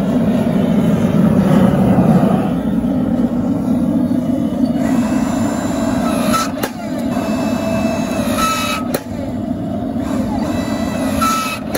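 Small forging press squeezing an orange-hot billet of stacked 1084 and 15N20 steel to set the forge weld, over a steady low mechanical noise. From about five seconds in a hiss joins, and three times a brief high tone ends in a sharp click.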